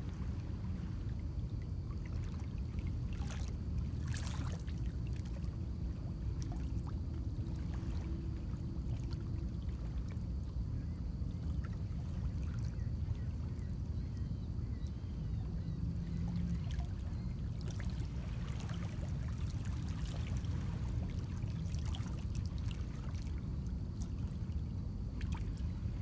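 Small lake waves lapping and trickling against shoreline rocks, with scattered faint splashes, over a steady low rumble of wind on the microphone.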